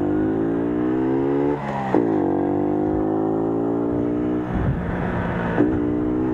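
Small moped engine revving in long rising pulls under throttle, its pitch dropping sharply about a second and a half in and again about four and a half seconds in as the throttle is eased, then climbing again, with a rougher rumble underneath near the end.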